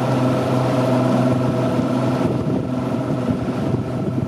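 Fishing boat's motor running steadily under way, a steady engine hum mixed with the rush of wind and water; the hum fades back a little behind the wind and water in the second half.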